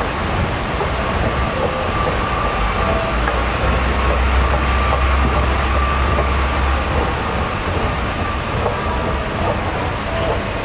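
Train running: a steady rumble and hiss with a faint steady whine, the low rumble swelling for a few seconds in the middle.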